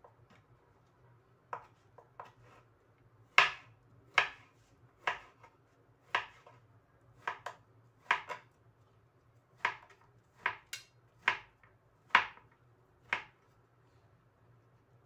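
Kitchen knife chopping tempeh on a plastic cutting board: sharp, uneven knocks of the blade striking the board, about one a second, starting about a second and a half in and stopping a couple of seconds before the end.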